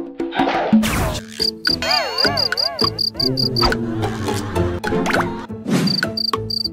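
Cricket-chirping sound effect: short, evenly spaced chirps at about five a second, in two runs. Under them run light comedic music notes and a wobbling, warbling tone in the middle.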